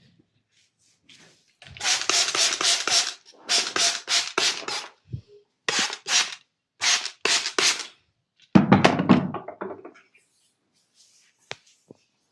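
Percussive massage: hands striking the body in rapid rhythmic strokes, about five a second, in several short bursts, the last one louder and deeper. Two faint sharp clicks follow near the end.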